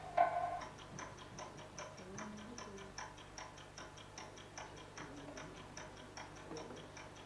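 Rapid, even ticking, about five ticks a second, like a clock. Right at the start there is a short pitched sound.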